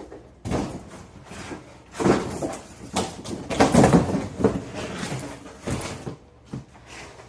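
Boxes and packaging being handled: irregular scrapes, rustles and knocks, the loudest cluster a few seconds in.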